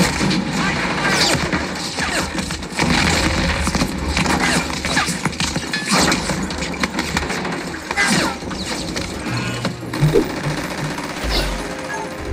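War-film battle soundtrack: rapid gunfire, impacts and crashes with a low rumble, over music.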